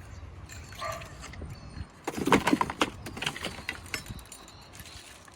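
Handling noises from unpacking: a cluster of knocks and rattles about two to three seconds in, with lighter rustles and clicks around it.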